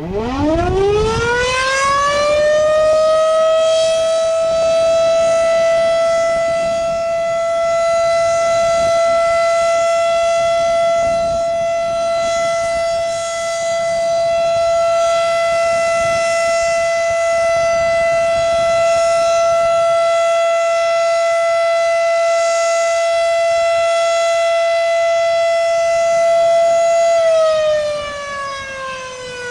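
Federal Signal Model 5 siren sounded for a test. It winds up from standstill to a steady tone over about three seconds, holds that tone, then begins to wind down with falling pitch near the end.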